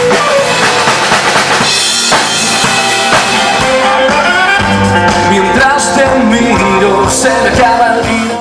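Live band playing during a sound check: a drum kit with snare and bass drum, under sustained pitched instrument notes.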